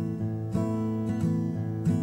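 Acoustic guitar playing blues chords through a 12-bar progression, the chords left ringing and struck again about half a second in and near the end.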